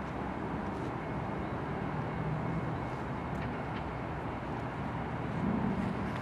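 Distant diesel locomotive approaching, heard as a steady low rumble that grows slightly louder near the end.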